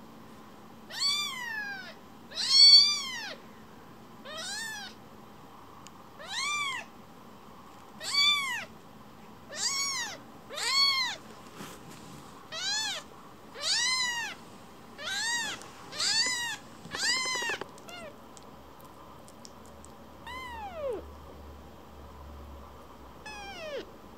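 A young kitten meowing over and over in short, high cries that rise and fall in pitch, about one a second. After a pause, two longer meows slide downward near the end.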